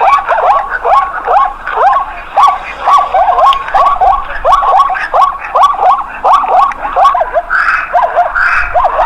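A dog yapping in a fast, unbroken series of short high yaps that drop in pitch, about two to three a second.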